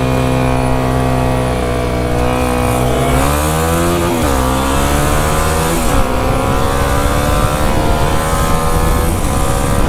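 Single-cylinder dual-sport motorcycle engine under way, steady at first, then accelerating hard about three seconds in, with the pitch dropping at gear shifts about four and six seconds in and climbing slowly afterwards. Wind rushes over the microphone.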